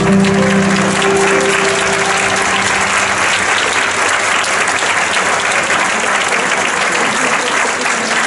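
A large audience applauding steadily, dense clapping throughout. The last held notes of the accompanying piano music fade out under it in the first two seconds.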